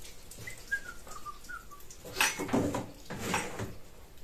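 Handling noises as vacuum-cleaner hose and plastic attachments are moved on a wooden workbench: two rustling, clattering bursts about two and three seconds in. A few short high squeaks come before them.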